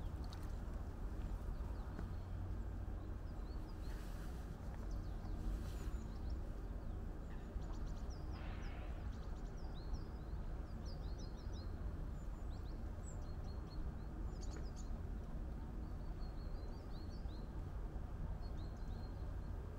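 Small birds calling with short, high, downward-sweeping chirps, heard mostly in the second half, over a steady low rumble.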